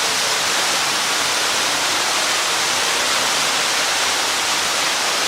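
Waterfall rushing with a steady, even hiss of falling water.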